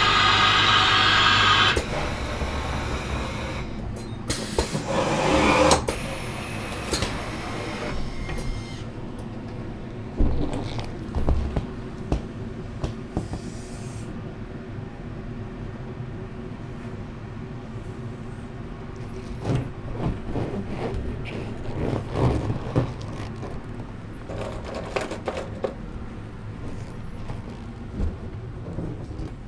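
The air pump of a home-built balloon printing rig running steadily, then shutting off about two seconds in. After that, latex balloons being handled, with rubbing squeaks, knocks and occasional thumps.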